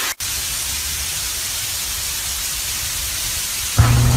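Heavy rain pouring down, a steady even hiss. Near the end a sudden, louder low rumble sets in and keeps going.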